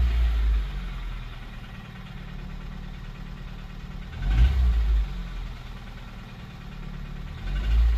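Honda K20A4 2.0-litre four-cylinder engine of a 2003 CR-V idling with a steady, rapid knocking-tapping noise that a fresh valve adjustment has not cured; the owner starts to suspect a rod or something moving around in the bottom end. Three low rumbles come over it, at the start, about halfway through and at the end.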